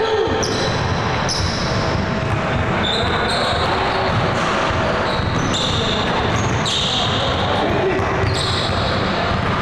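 Basketball game on a hardwood gym floor: the ball bouncing and sneakers squeaking in short, high chirps several times, over indistinct voices.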